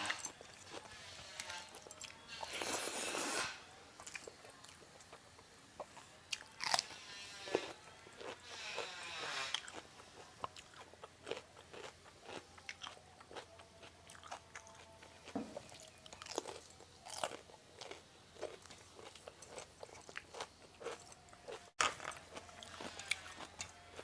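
Close-miked chewing of a vegetarian Indian lunch of rice, fried vegetables and curry: irregular crunchy bites and wet mouth clicks, with the longest crunches about three and nine seconds in.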